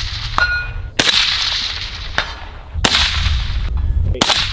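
Three rifle shots from a cheap Walmart-bought hunting rifle, about a second and a half apart, each a sharp crack trailing off in an echo. Less than half a second in, a short metallic ring sounds, as of a bullet striking a steel target.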